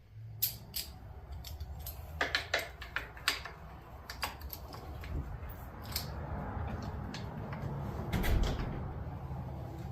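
Scattered clicks and knocks of a motorcycle handguard's metal bar clamp and parts being handled and fitted on the handlebar, over a low steady hum, with a heavier knock near the end.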